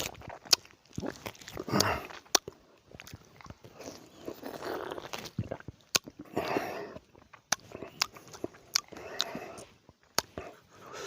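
Someone biting and chewing lemon, mouth sounds with many sharp wet clicks between bursts of chewing every second or two.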